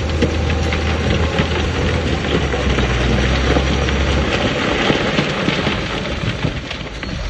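Heavy diesel earthmoving machine running under a dense, continuous crackle and rattle of stone fill being pushed or tipped; the engine's low hum shifts down about four seconds in.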